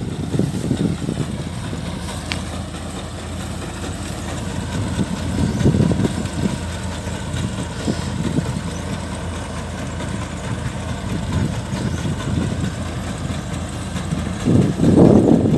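Kubota combine harvesters' diesel engines running steadily at close range, a dense low rumble that swells slightly about five to six seconds in.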